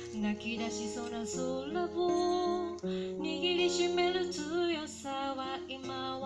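A woman singing a melody with a wavering vibrato, accompanied by a strummed and plucked steel-string acoustic guitar.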